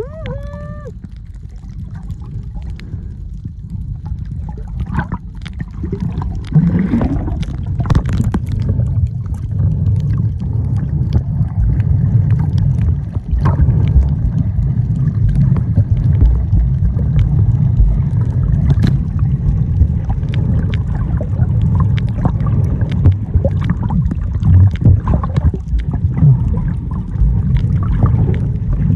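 Muffled underwater sound of water moving past a camera on a shallow coral reef: a steady low rumble with scattered clicks and crackles, louder from about six seconds in. A short pitched tone sounds right at the start.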